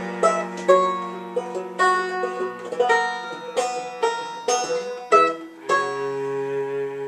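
Folk tune played on banjo, cello and keyboard: crisply picked banjo notes over held low tones, closing on a held final chord that starts to fade near the end.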